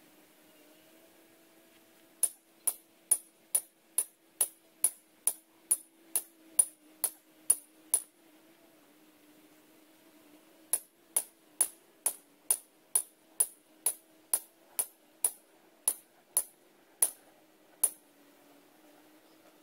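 Hammer blows driving a steel greenhouse ground post into the ground: sharp metallic clanks about two a second. A run of about fourteen is followed by a pause of nearly three seconds, then about sixteen more.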